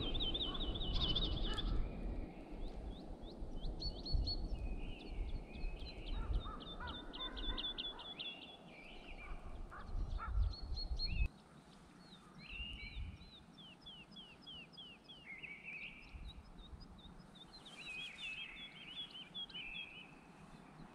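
Several wild birds singing and calling: repeated quick series of high, sweeping notes, with lower, harsher calls in between. A low rumble runs under the first half and stops abruptly about eleven seconds in.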